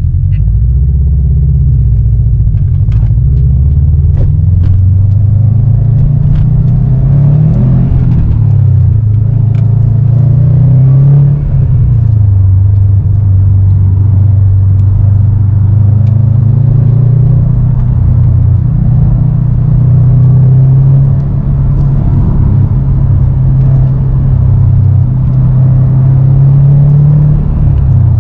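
2020 Subaru WRX STI's turbocharged 2.5-litre flat-four engine running hard on the road, its pitch climbing under acceleration and dropping back several times as the car is driven through turns.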